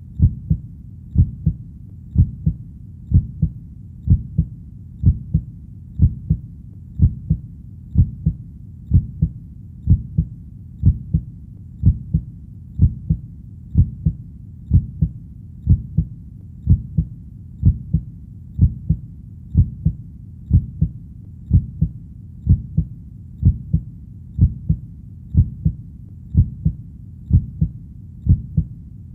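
Human heartbeat: a steady, slow lub-dub double thump about once a second, low-pitched, over a faint low rumble.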